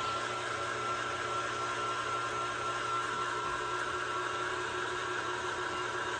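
KitchenAid stand mixer's motor running steadily with a whine, driving the meat grinder attachment as it grinds beef.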